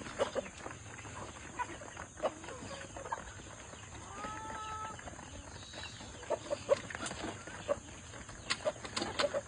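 Chickens clucking and calling, with one drawn-out call about four seconds in and scattered short sharp clicks and taps.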